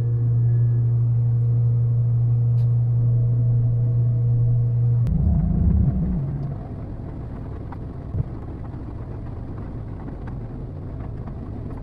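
A small pilothouse boat's engine running steadily under way with a strong low hum. About five seconds in it surges briefly and then drops to a much quieter, lower rumble as it is throttled back.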